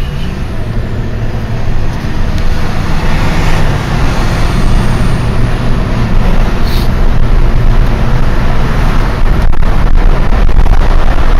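Motor vehicle driving: steady engine hum and road noise, growing louder a couple of seconds in and again near the end.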